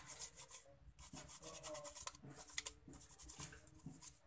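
Repeated scrubbing strokes on a computer mouse's circuit board, cleaning the dirty switch legs with thinner; an uneven scratchy hiss.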